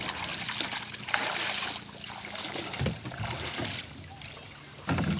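Shallow seawater splashing and sloshing as people wade through it, loudest about a second in, with a few dull knocks.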